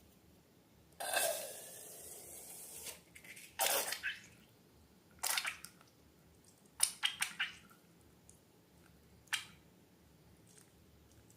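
Slime and balloons being handled: a hiss lasting about two seconds, starting about a second in, then a handful of short sharp sounds, two of them in quick clusters.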